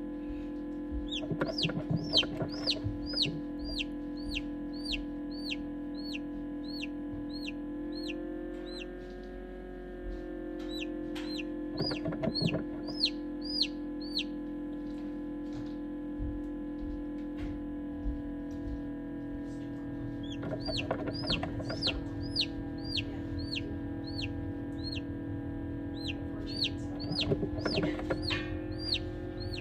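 Newly hatched chick peeping: runs of high, short peeps about three a second, each rising then falling in pitch, in four bouts separated by pauses of a few seconds.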